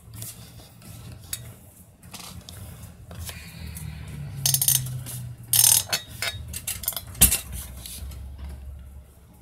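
Handling noise: small plastic clicks and clinks with a light rustle of a plastic polybag. There are two short crinkly bursts about four and a half and five and a half seconds in, and a sharp click a little after seven seconds.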